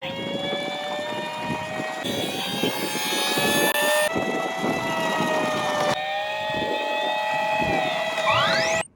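Several toy emergency vehicles' electronic sirens and sound effects sounding over one another as a steady, dense jumble of tones. The mix changes abruptly about every two seconds and ends with a rising sweep before cutting off suddenly.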